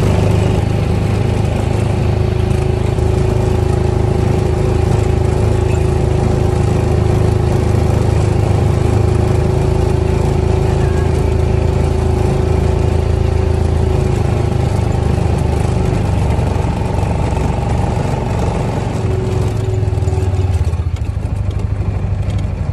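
Side-by-side UTV's engine running steadily while driving, with wind and ride noise over it; the engine note eases off a little in the last few seconds.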